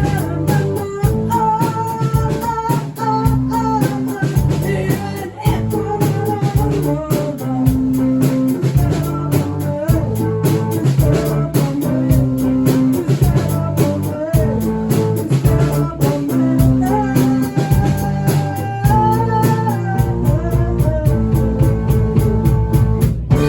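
A live band playing a song with guitar, drums and a singing voice. Just before the end it breaks off briefly and is followed by held, ringing notes.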